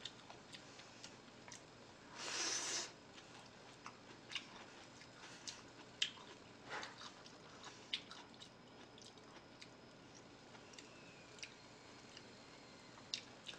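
Faint close-up eating sounds: soft chewing and wet mouth clicks, with light clicks of chopsticks against a bowl. A brief breathy slurping sound comes about two seconds in.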